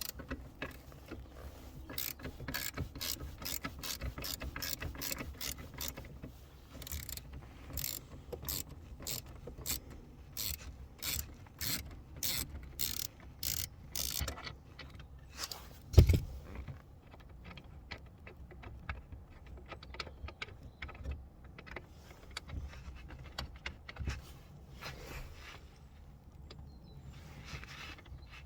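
Hand ratchet clicking in quick even runs as bolts are worked, with a single heavy knock about halfway through.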